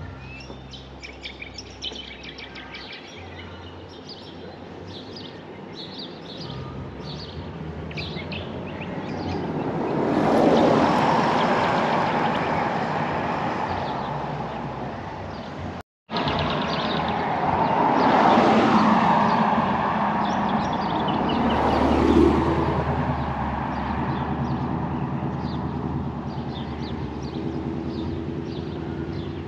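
Outdoor ambience: small birds chirping, with two louder swells of a broad rushing noise, one about a third of the way in and a longer one in the second half. The sound drops out for an instant in the middle.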